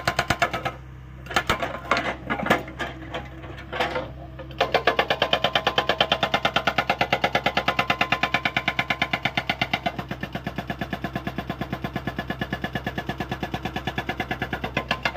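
Hydraulic rock breaker on a Hyundai 85A excavator hammering in rapid, even blows over the steady hum of the engine. It stops about a second in, leaving a few scattered knocks, then starts again about four and a half seconds in and keeps going, a little quieter over the last five seconds.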